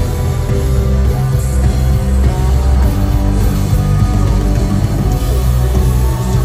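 Live rock band playing: electric guitars, bass guitar and drums, loud and continuous with a heavy low end.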